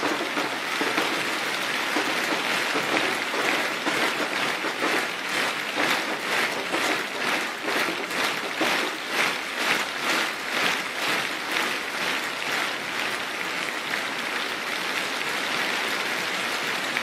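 A large outdoor audience applauding. From about three seconds in until about twelve seconds in the clapping falls into a beat of about two claps a second, then it goes back to steady, unsynchronised applause.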